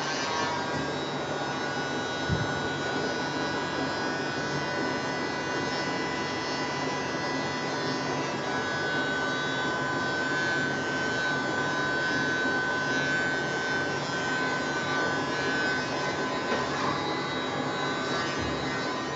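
Hair dryer running steadily: an even rush of air with a motor whine through it, the whine growing a little stronger about halfway through.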